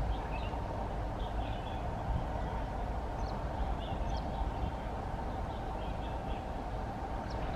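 Steady low rumble of a WDP-4D diesel locomotive and its express train approaching from a distance, with birds chirping briefly every second or two over it.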